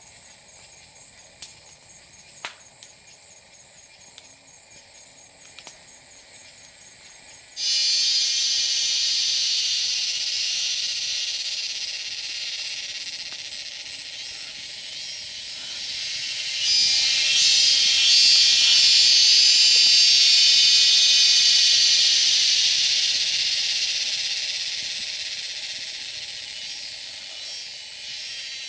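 Cicadas start a loud, high, shimmering buzz about eight seconds in, swell to a peak near the middle and slowly fade. Before that there is only a faint high insect hum and a couple of small clicks.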